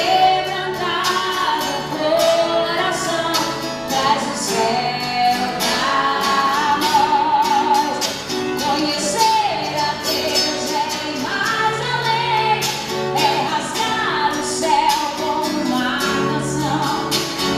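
A gospel church band plays while a woman sings the lead, her held notes wavering with vibrato, over a run of short, sharp percussion strokes.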